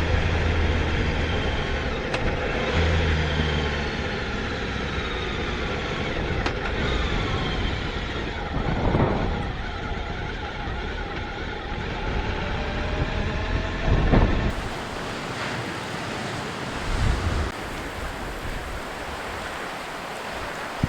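Motorcycle engine running under way with wind noise, its pitch rising and falling. About two-thirds through it cuts abruptly to wind buffeting the microphone and ocean surf.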